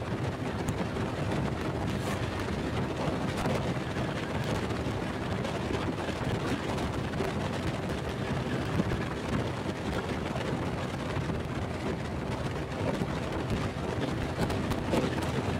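Wind rushing over the microphone of a Honda Pop 100 motorcycle cruising at a steady speed, with its small single-cylinder engine running underneath at an even pitch.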